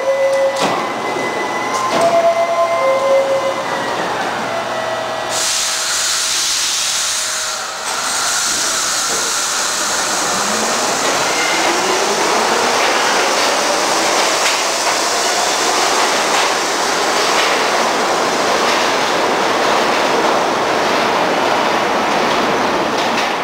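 R44 New York City subway train pulling out of an underground station. A steady whine while it stands, then about five seconds in a sudden loud hiss that carries on. The motors whine rising in pitch as the train picks up speed, then a steady rush of wheels on rails as the cars go past.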